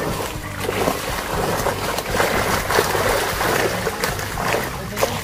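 Large fish thrashing in a seine net in shallow pond water, splashing hard and repeatedly, with water churning.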